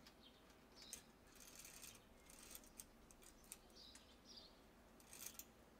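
Faint, scattered clicks and light clinking of a bicycle chain being handled at the rear derailleur, with a few faint bird chirps.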